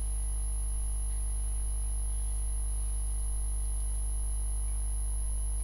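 Steady electrical mains hum picked up by the recording microphone: a low buzzing drone with a ladder of overtones above it and a faint, thin high-pitched whine, unchanging throughout.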